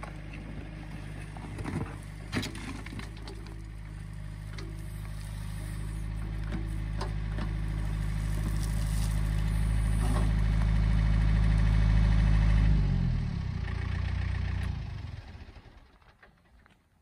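Diesel engine of a John Deere backhoe loader running under load while the backhoe digs, with a few knocks and scrapes from the bucket in the dirt. The engine grows louder as it works, steps down about thirteen seconds in, and fades away over the next few seconds.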